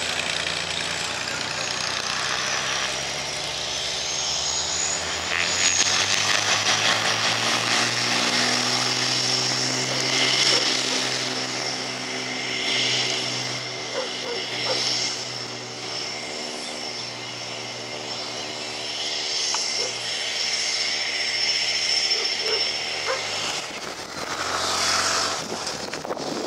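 Cessna 310R's two piston engines and propellers running, going up to full takeoff power about six seconds in, with a steady multi-tone drone through the takeoff run and lift-off.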